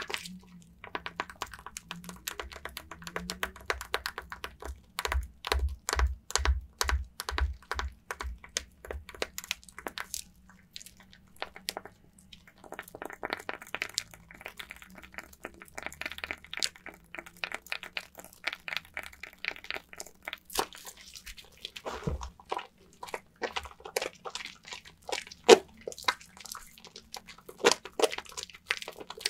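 Soaked bar of lavender soap being lathered with water: rapid wet crackling and squelching clicks, easing off briefly about ten seconds in, with one louder snap near the end.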